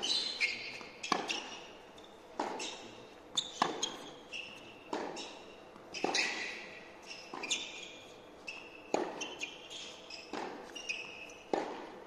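Tennis rally: the ball is struck by racket after racket, about ten hits at a steady pace of one every second and a half or so. Each sharp pop rings briefly and echoes in the large indoor hall.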